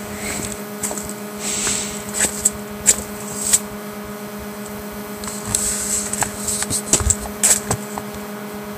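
Handheld camera handling noise: rustling and scattered clicks as the camera is moved about, over a steady low hum.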